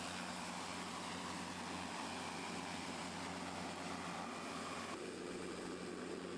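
Steady mechanical drone with a low hum under a wide hiss, shifting in character about five seconds in.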